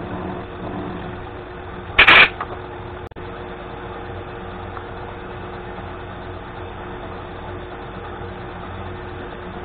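Vertical milling machine running steadily with a steady hum. About two seconds in there is one short, loud clatter.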